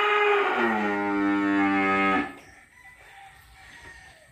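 Cow mooing: one long moo that drops to a lower pitch about half a second in, holds steady, and stops abruptly a little over two seconds in.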